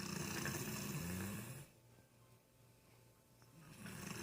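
A sleeping man snoring: a low, fluttering snore that stops about a second and a half in, a quiet pause while he breathes out, then the next snore starting near the end.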